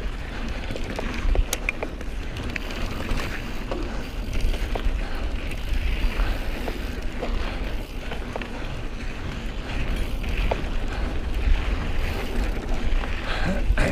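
Wind buffeting the mountain bike's camera microphone at speed, over the rush of knobby tyres on a dirt singletrack, with scattered clicks and rattles from the Specialized Stumpjumper's chain and frame.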